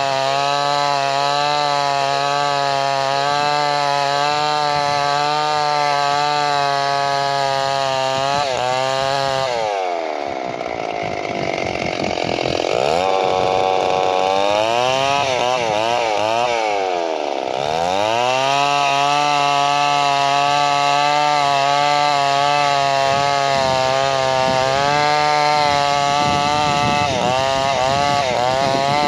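Two-stroke chainsaw running at high speed, cutting into wood. Its pitch drops and swings up and down for several seconds in the middle, then climbs back to a steady high pitch with a slight waver.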